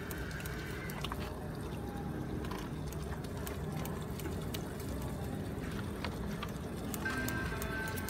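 Steady low background noise of a street food stall, with scattered light clicks and taps of utensils and paper wrappers as fried tofu and rice cake are portioned out.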